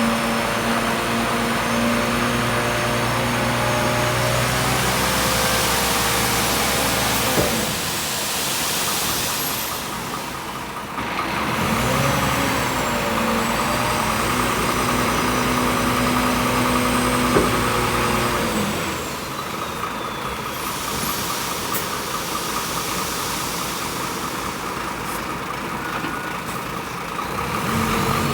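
A vehicle engine running steadily, its note dropping back twice and picking up again in between.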